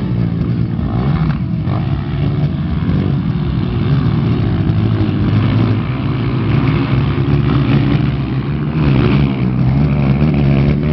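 Motocross dirt bike engines revving during a race, the pitch rising and falling as the riders work the throttle.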